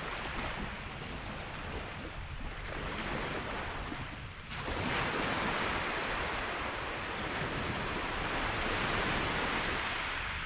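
Sea surf washing on a shingle beach, a steady rushing wash that swells louder about four and a half seconds in.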